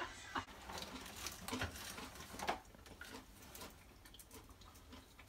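Faint scattered rustles and light clicks, busier in the first half and fading to a near-quiet room after.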